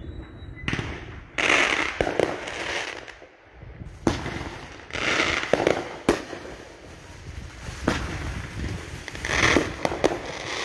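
Fireworks going off: a run of sharp bangs and crackling bursts, the loudest about a second and a half in, around five seconds in and near the end.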